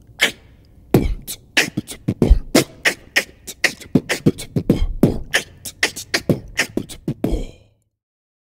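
Beatboxing music: quick vocal percussion, with kick, snare and click sounds in a driving rhythm, cutting off about seven and a half seconds in.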